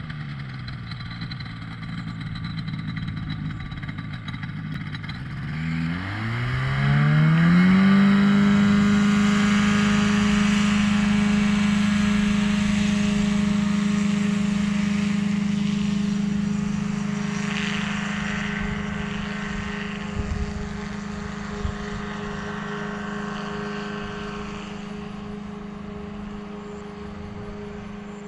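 Ultralight tow plane's engine at low power, then throttling up about six seconds in, rising in pitch over two seconds to full takeoff power. It holds a steady pitch there and slowly fades as the tug climbs away towing a hang glider on an aerotow launch.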